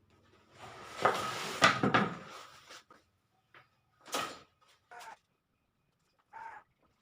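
A scraping rustle lasting about two seconds, then two sharp knocks, and near the end a short bird call.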